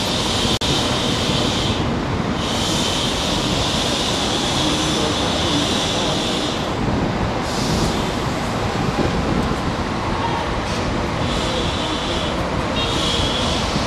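Steady loud outdoor noise of city traffic, with a high hissing buzz that comes and goes in stretches of a few seconds.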